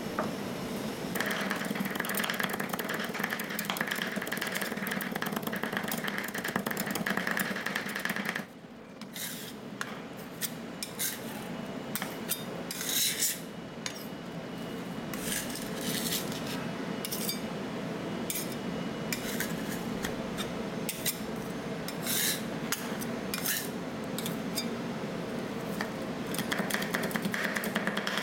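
Metal spatulas on a rolled ice cream cold plate: rapid tapping and chopping mixed with scraping against the steel surface. The tapping is dense for the first several seconds, thins to scattered taps and scrapes, then turns dense again near the end.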